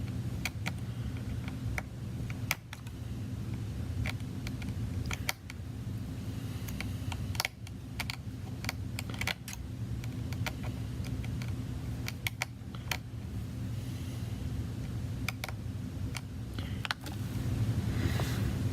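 Irregular light clicks and taps of a precision screwdriver and tiny screws being worked out of an iPad, with a few small knocks as parts are handled, over a steady low hum.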